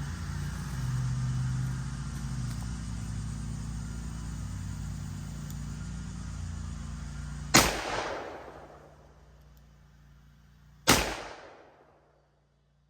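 Two .41 Magnum revolver shots from a Smith & Wesson Mountain Gun fired double action, about three seconds apart, each with a short echoing tail. Until the first shot, a lawn mower drones steadily in the background.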